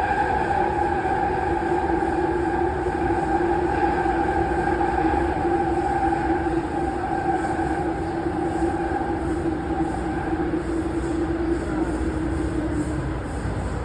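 Toronto TTC subway train running between stations, heard from inside the car: a steady rumble with two held whining tones. The higher tone fades out about ten seconds in and the lower one ends near the end.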